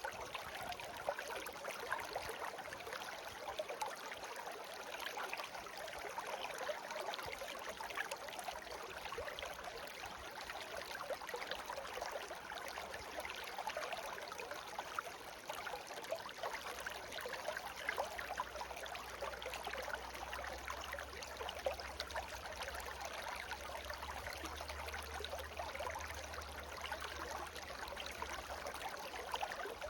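Shallow stream babbling steadily over stones, a continuous rush of water with many small splashes and trickles.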